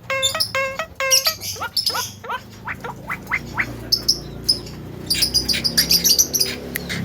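Javan myna calling and mimicking: a run of short, even-pitched notes about four a second, then a string of quick falling notes, then fast high-pitched chatter near the end.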